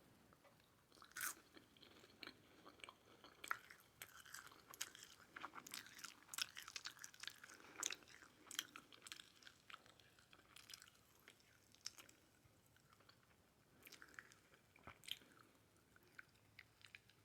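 Faint chewing of whole dried shrimp: irregular small crunches and clicks, busiest in the first half and thinning out later.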